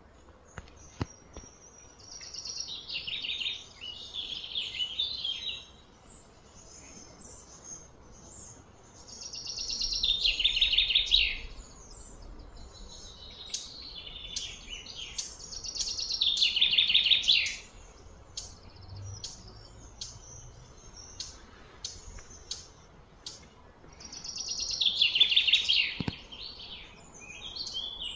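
Birdsong: a songbird sings four phrases of rapid, falling trills, each about two seconds long, with short high chirps in between.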